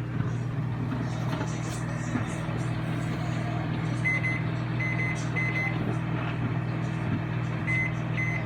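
Frigidaire 0.7 cu ft countertop microwave running: a steady, even hum from the oven at work.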